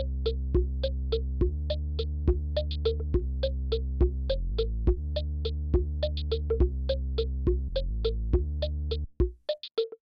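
Background electronic music: short plucked synthesizer notes, about three a second, over a steady bass line, cutting off about nine seconds in.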